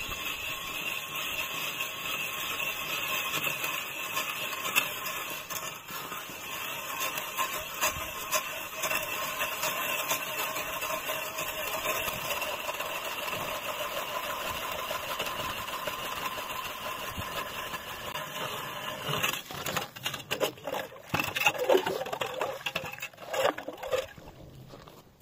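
Motor-driven ice auger boring a hole through lake ice: a steady motor whine that stops about 19 seconds in. Irregular knocks and rattles follow as the auger and ice chips are cleared from the hole.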